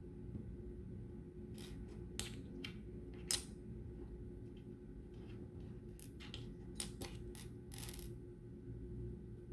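Plastic LEGO pieces clicking and clattering as they are handled: about a dozen light, sharp clicks at irregular intervals, most of them in the middle and later part.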